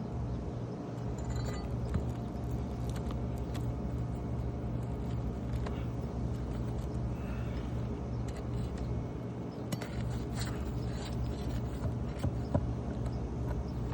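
Light metallic clinks and scrapes of roofing hand tools working at asphalt shingles during a shingle repair, over a steady low hum.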